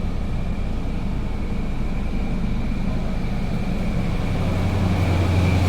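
A car engine idling steadily, its low hum growing louder about four seconds in, with a faint steady high tone over it.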